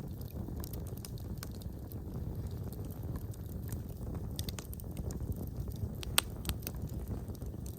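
Wood fire in a fireplace crackling: a steady low rumble of flames with scattered sharp pops and snaps, one much louder snap about three-quarters of the way in.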